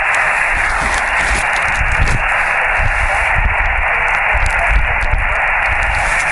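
Portable ham radio receiver on HF single sideband giving out steady band-noise hiss. A very weak, fading station lies buried under the static.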